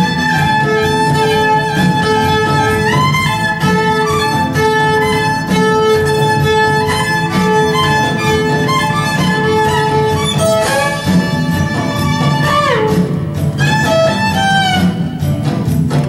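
Violin played in long held notes, sliding up into them near the start and down in a long slide about 13 seconds in, over a recorded backing with a steady beat.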